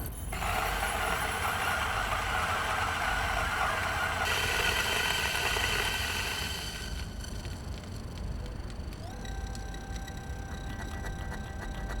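A small electric kitchen appliance motor running with a loud rushing noise for about seven seconds, its sound shifting higher about four seconds in. It then drops away, and a steadier humming tone rises briefly and holds from about nine seconds in.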